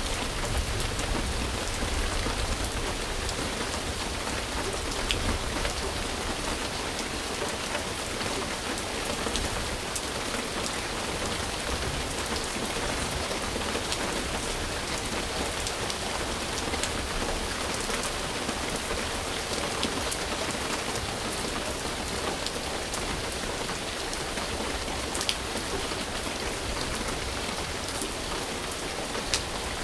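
Steady rain falling on a surface, with individual drops ticking sharply now and then through the even hiss.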